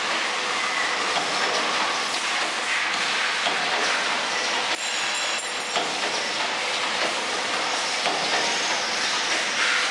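Automatic clothes-peg assembly machine running: its vibratory bowl feeders and assembly mechanism make a continuous, dense rattling clatter.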